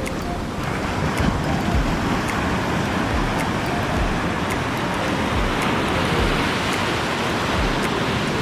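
Steady rush of surf breaking on a beach, with wind rumbling on the microphone.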